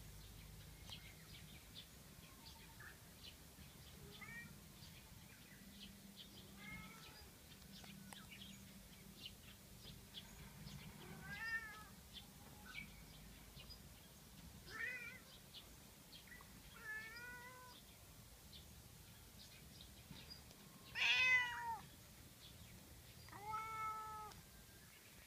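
A cat meowing: a string of short meows a few seconds apart, each with a rise and fall in pitch, faint at first and getting louder, the loudest near the end.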